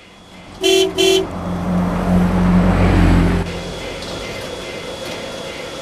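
Steam locomotive whistle giving two short toots, followed by a loud low rumble for about two seconds and then a steady hiss of steam.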